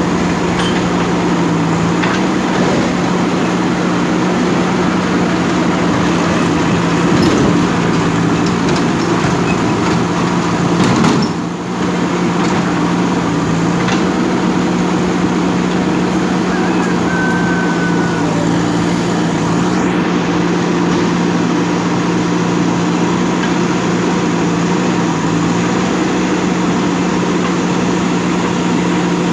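Diesel engine of a JCB backhoe loader running steadily while digging. Its level dips briefly about a third of the way in, after a short knock.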